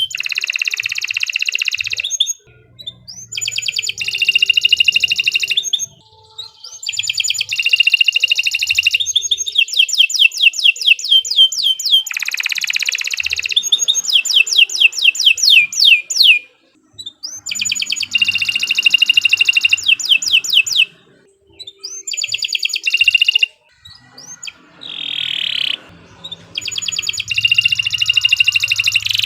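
Domestic canary singing long, high-pitched phrases of fast repeated notes and rolling trills, broken by several short pauses.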